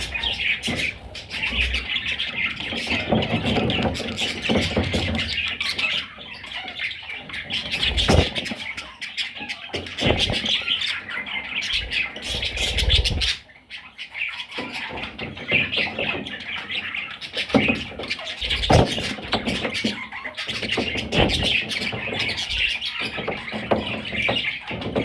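A flock of budgerigars chattering and warbling continuously, with scattered chirps and squawks and a few sharp knocks.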